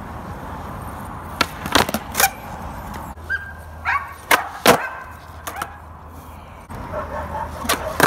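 Skateboard wheels rolling on smooth concrete, broken by a run of sharp clacks as the tail pops and the board slaps down during a flatground flip-trick attempt, the two loudest about four and a half seconds in. The rolling starts again near the end, with another clack.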